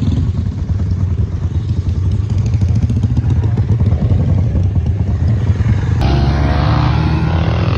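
Motorcycle engine running steadily, close by, its sound changing about six seconds in.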